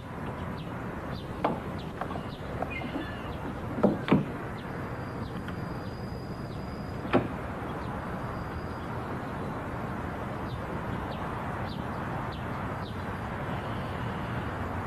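Steady outdoor background hiss with a few sharp clicks and knocks of a key and handle being worked at an apartment front door, the loudest pair about four seconds in.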